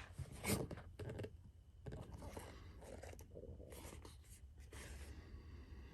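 Cardboard box and packaging being handled: a couple of light knocks in the first second, then about three seconds of scraping and rustling as the box is turned and rubbed.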